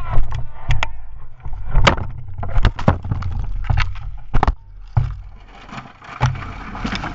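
Rider-worn action camera knocking and scraping against the ground as a dirt bike rider tumbles in a crash and comes to rest in dry brush: a string of sharp thumps and knocks over a low rumble, with rustling of grass and twigs near the end.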